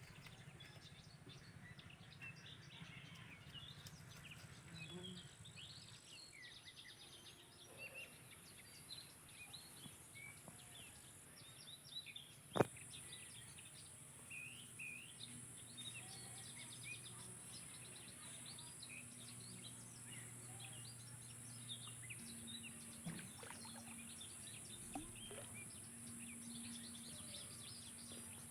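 Faint outdoor ambience of many small birds chirping in short, scattered calls over a steady high hiss, with one sharp click about halfway through.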